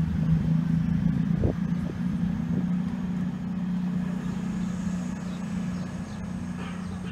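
Diesel engines of a CrossCountry Voyager train running as it approaches, a steady low drone that fades a little, with a couple of faint knocks early on.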